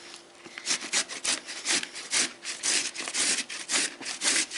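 Carrot being grated on a flat metal hand grater: quick, even rasping strokes, several a second, starting after a short pause about half a second in.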